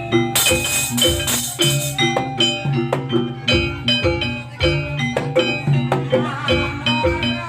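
Jaranan accompaniment music: pitched metal percussion in a steady rhythm over drum strokes, with a bright cymbal or shaker hiss from about half a second in that stops about two seconds in.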